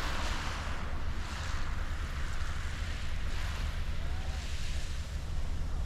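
Small waves washing onto a shingle beach in repeated swells, over a steady low rumble of wind on the microphone.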